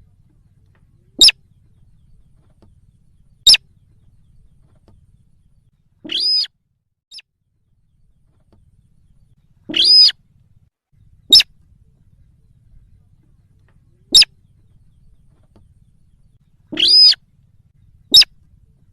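Recorded calls of the sintar bird played as a lure: short, sharp single call notes every few seconds, with three longer, drawn-out calls mixed among them.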